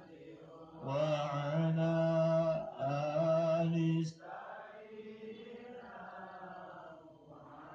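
Islamic devotional chanting (dzikir) in Arabic. One voice holds two long, loud notes from about one second in until about four seconds in. Quieter chanting carries on after that.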